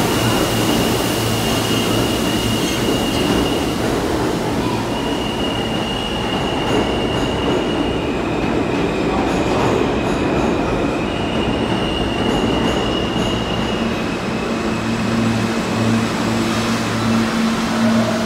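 New York City Subway cars running through an underground station with a steady rumble, overlaid by long, high, steady squeals of the kind wheels make on the rails. Near the end a low steady hum sets in as a train stands at the platform.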